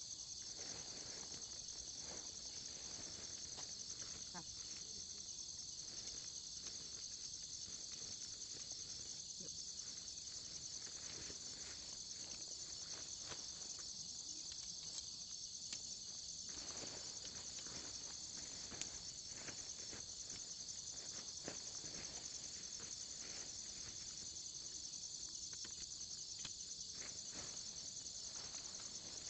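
Steady high-pitched chorus of crickets or similar insects, with faint scattered clicks and knocks underneath.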